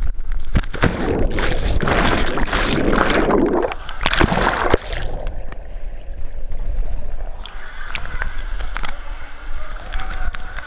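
Water splashing and churning around an action camera as a swimmer moves through the pool, then dull and muffled for about two seconds while the camera is underwater, then lighter splashes and lapping once it is back at the surface.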